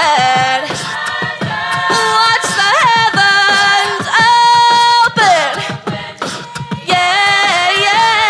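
Mixed-voice show choir singing in harmony, voices holding and sliding between notes, with sharp percussive hits throughout.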